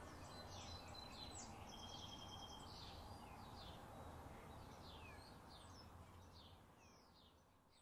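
Fading tail of an experimental synth track: a faint low hum and hiss with scattered short, high, falling chirps and a few brief steady beeps about two seconds in. It all dies away to silence near the end.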